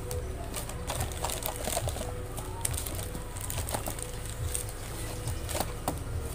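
Strip of plastic-foil medicine sachets crinkling and rustling as it is handled and pulled up out of a box, with scattered sharp crackles.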